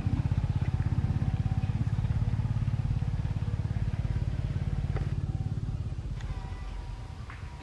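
Small motorcycle engine running, a fast even low throb that comes in suddenly and fades away over several seconds.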